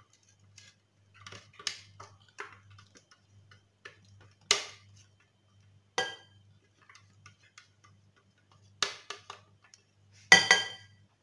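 Cake batter being scraped out of a blender jug with a silicone spatula: soft scraping and ticking, broken by a few sharp clinks of the jug and spatula against the glass bowl. The loudest clink, near the end, rings briefly.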